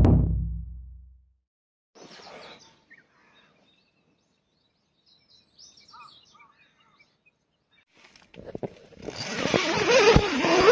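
A deep low boom fades out at the start, then near quiet with a few faint bird chirps. A loud rushing noise builds up near the end.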